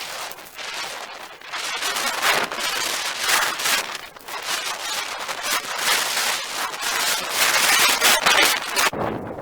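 Hand pole saw cutting through willow branches: repeated rasping saw strokes that swell and fade unevenly, stopping near the end.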